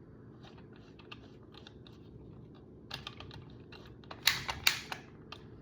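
Gas soldering torch being clicked over and over, small clicks with a few sharper ones about three seconds in and a quick cluster of loud clicks near the end. It is being clicked until the gas is heard coming on.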